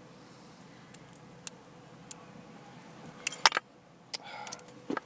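Small metal clicks and rattles of lock picks working in a Lockwood 215A40 padlock: a few scattered clicks, then a louder burst of rattling a little past halfway, and more clicks near the end.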